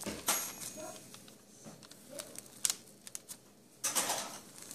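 Pencil drawing on spiral-notebook paper: short scratchy strokes and light taps, with a longer scratch near the end.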